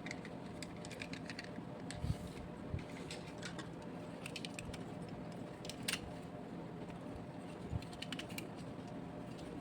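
Scattered light clicks and taps of small die-cast toy vehicles being handled, with a few soft thumps and a faint steady hum underneath.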